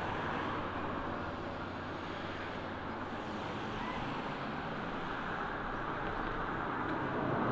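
Motor vehicle running nearby: a steady engine rumble with a low hum under a haze of road noise, growing a little louder near the end.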